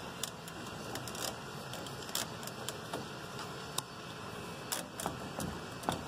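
Scattered light clicks and taps of PVC pipe fittings and clear vinyl tubing being handled and pulled apart, over a faint steady hiss.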